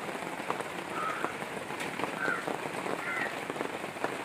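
Rain falling in a steady patter of many small drops, with three brief high chirps.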